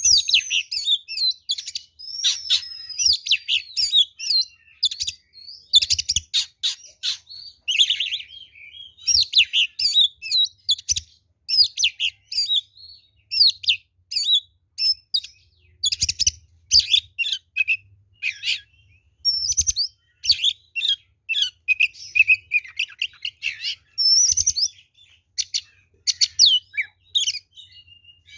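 Oriental magpie-robin (kacer) singing loud, full fighting-mood song: a fast, varied, almost unbroken stream of whistles, sharp chips, sliding notes and short trills.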